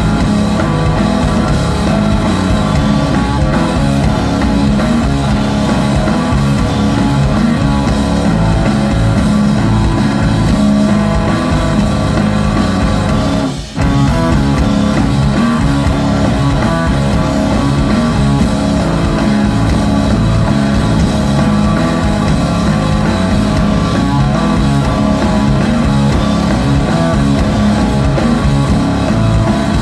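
Stoner rock band playing live: electric guitar, bass guitar and drum kit at full volume. About halfway through, the band stops dead for a split second, then crashes back in.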